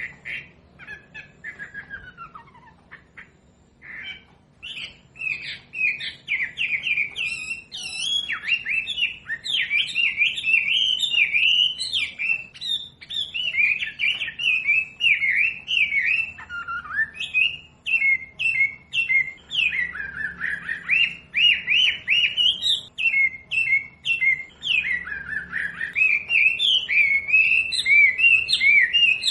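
Wambi bird singing: one falling whistled note near the start, then from about four seconds a fast, continuous run of varied chirps and warbles. This is a masteran recording, song played to teach cage birds.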